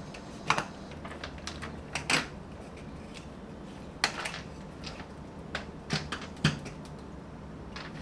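Interlocking wooden deck tiles with plastic clip-together bases being unsnapped from each other and lifted off a concrete floor, giving irregular plastic-and-wood clicks and clacks with a few sharper knocks.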